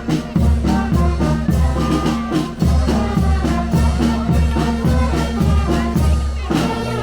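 Upbeat music with a steady beat, drums and a strong bass line.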